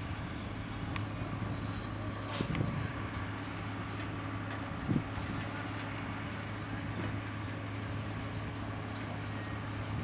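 Hidromek MG 330 motor grader's diesel engine running steadily as the machine pushes its blade through soil, with a couple of brief clunks about two and a half and five seconds in.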